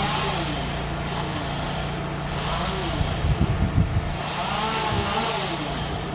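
Engine of the tree crew's equipment running with a steady hum, revving up and falling back about every two and a half seconds, with a few low thumps in the second half.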